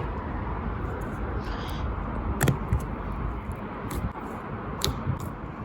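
Thick butter-cream slime being handled, giving a few sharp pops and clicks over a steady background noise.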